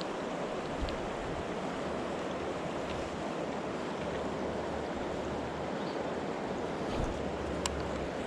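Steady rush of a mountain stream's flowing water, with a few faint clicks, the sharpest near the end.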